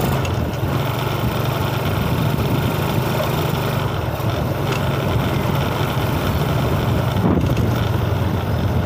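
Motorcycle engine running steadily as the bike is ridden along a road, a constant low hum.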